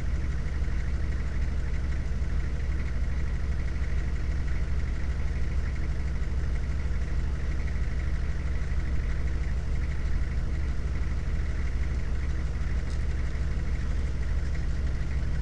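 An engine idling steadily: a constant low drone that does not change speed.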